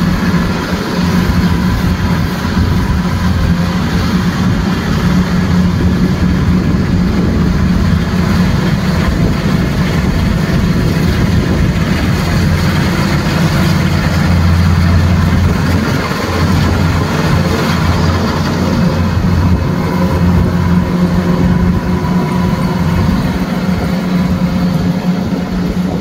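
Kubota crawler combine harvester's diesel engine running steadily under load while it cuts and threshes rice, a continuous low drone that is a little louder around the middle as the machine passes closest.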